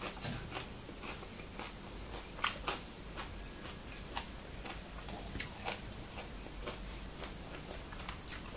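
A person chewing a crisp raw vegetable: scattered crunches and wet mouth clicks, the two loudest crunches about two and a half seconds in.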